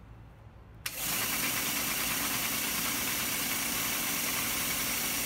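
A switch clicks about a second in and the belt sander/grinder's half-horsepower electric motor starts, coming up to speed within a fraction of a second, then runs steadily with the abrasive belt whirring. The motor sounds good.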